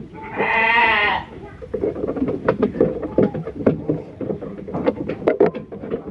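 A restrained, injured sheep gives one quavering bleat about a second long, shortly after the start. Small clicks and rustling from handling follow.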